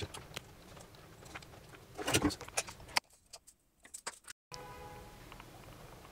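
Faint handling noise of hands working a soldering iron on a speaker crossover board: small scattered clicks and a brief rustle about two seconds in, over a low steady hum. The sound then drops out almost completely for over a second before the hum returns.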